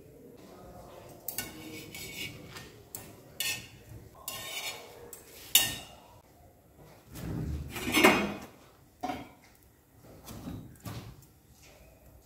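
Metal kitchen tongs clinking and scraping against an iron tawa as a roti is turned and cooked over a gas flame: a string of short, uneven clicks and knocks, with a louder clatter about eight seconds in.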